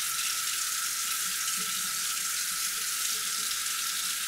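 Kitchen faucet running a steady stream into a stainless steel sink, heard as an even hiss, with a hand held under the water to feel whether it has turned hot.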